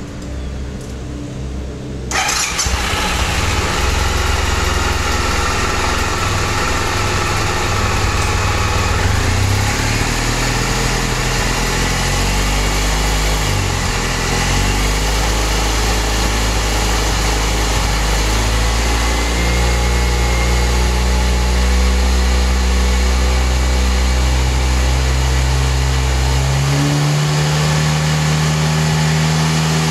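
Suzuki Burgman 650 scooter's parallel-twin engine starting about two seconds in and idling, then held at higher engine speeds in steps, its pitch jumping up about a third of the way in, again about two-thirds in, and once more near the end.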